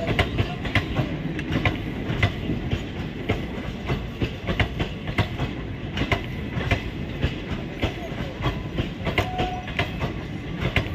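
ICF-type passenger coaches of an express train rolling past close by: a continuous rumble of wheels on rail, with sharp knocks as the wheels clack over rail joints, recurring about every half to three-quarters of a second.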